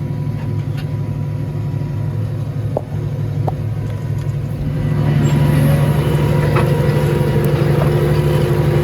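Tractor engine running steadily under load while pulling a plough through the ground, growing louder about five seconds in.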